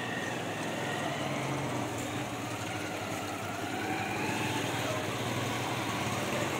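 Petrol pouring from a fuel dispenser's nozzle into a plastic bottle, with the dispenser's pump running steadily.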